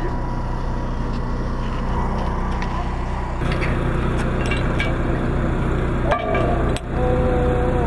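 A chained metal plug being pulled from a sewer cover: a few sharp metallic clinks of the chain and plug near the end, over a steady low hum.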